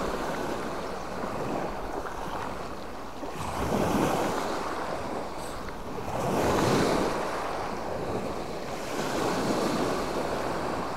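Sea waves washing onto a beach, the surf swelling and falling back three times, every two to three seconds.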